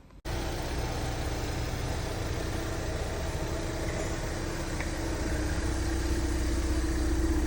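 Ford Mustang GT's V8 engine idling steadily, starting suddenly just after the beginning and slowly getting a little louder.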